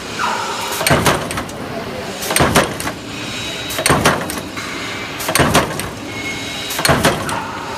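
Steel strip fed through a roller straightener into a punching press, with a cluster of sharp metallic clanks from each press stroke about every second and a half, five times, over steady machine noise.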